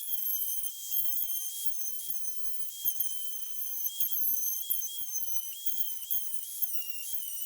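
Small high-speed grinder running with a steady high-pitched whine while it cuts a groove along a crack in a thin steel exhaust heat shield. The pitch dips briefly now and then as the bit bites, most clearly near the end.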